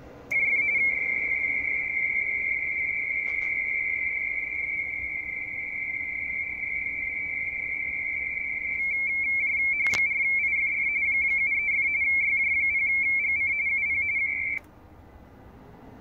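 RTTY (radioteletype) signal from an Icom IC-7600 transceiver on the 17 m band: a loud, high-pitched data tone that switches rapidly between two close pitches 170 Hz apart, mostly steady at first and warbling in its second half. It starts just after the beginning and cuts off sharply about fourteen and a half seconds in, with a sharp click about ten seconds in.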